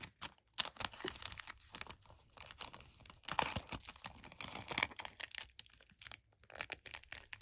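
Clear plastic adhesive gift bag crinkling and rustling in the hands as a card with a keyring is slid into it and its flap is handled, in irregular crackles that are busiest around the middle.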